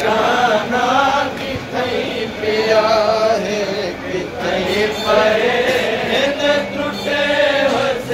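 Men's voices chanting a noha, a Shia lament for Qasim ibn Hasan, sung as a continuous unbroken line.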